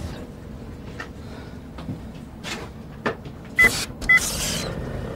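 Scattered clicks and clunks over a low steady hum, then two short high beeps about half a second apart, each with a sharp click, some three and a half seconds in; the second is followed by a brief hiss.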